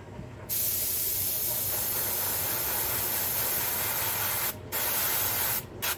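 Airbrush spraying paint in a steady hiss of air that starts about half a second in and runs for about four seconds, stops briefly, then sprays again for about a second, with a short burst near the end.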